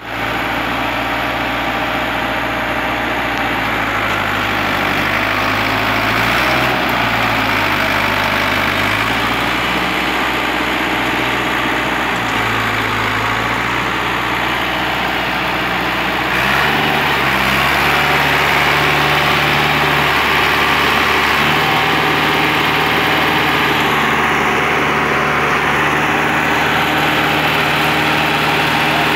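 Ford 5000 Super tractor's engine running under load as it pulls a trailer. The engine note rises and falls in the first half, then about 16 seconds in it goes up and holds steadier and a little louder.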